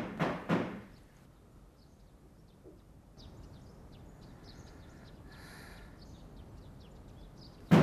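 Knocking on a glass-paned wooden door: three knocks right at the start and three more near the end. Faint birds chirp in between.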